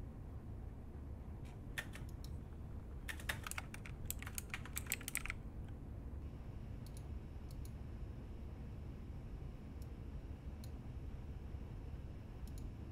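Typing on a mechanical computer keyboard: a couple of keystrokes about two seconds in, a quick run of keystrokes from about three to five seconds in, then a few scattered single clicks.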